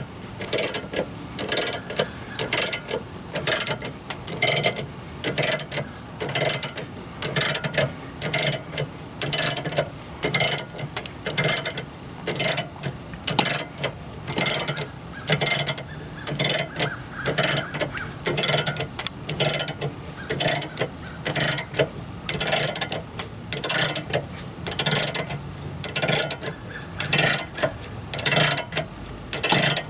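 Ratchet handle of a 2-ton scissor jack being swung back and forth to turn the jack's screw: its pawl clicks in a steady run of strokes, about two a second.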